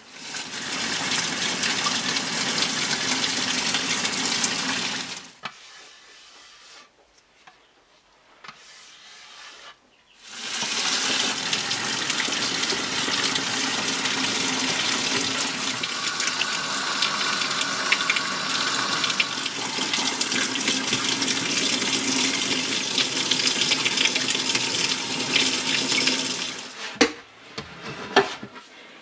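Water running steadily, rinsing oxalic acid residue off the wood. It stops after about five seconds, comes on again a few seconds later and runs for about sixteen seconds. A few sharp knocks follow near the end.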